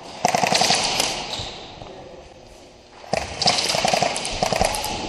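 Airsoft guns firing on full-auto: two long strings of rapid shots. The first starts just after the beginning and lasts about a second. The second starts about three seconds in and runs for about two seconds.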